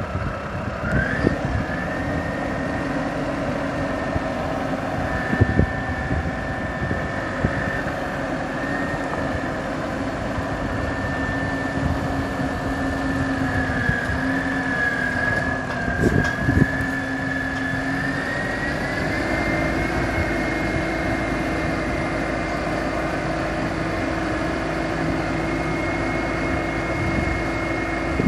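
Gehl DL12-55 telehandler's John Deere turbo diesel engine running steadily with a high whine over it, both rising in pitch a bit about two-thirds of the way through as the engine speeds up while the boom is raised. There are a few short knocks, the clearest about sixteen seconds in.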